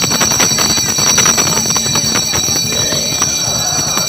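Brass ritual handbells of a tatung ceremony rung continuously, a steady high ringing under many rapid sharp strokes, amid a crowded room's murmur.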